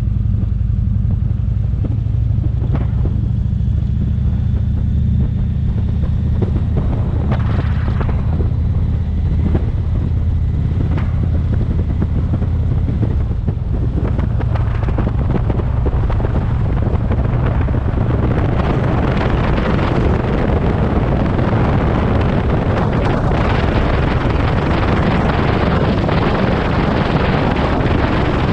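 Touring motorcycle engine running steadily as the bike rides along a road, a low engine note with wind rushing over the microphone that grows louder through the second half.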